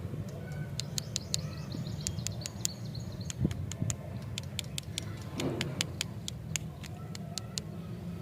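A rapid series of sharp clicks, about two or three a second, over a steady low hum.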